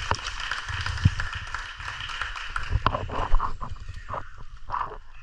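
Water splashing and lapping around swimmers at the surface, close to a camera at water level. There is a steady hiss at first, then a series of sharp, irregular splashes and slaps in the second half.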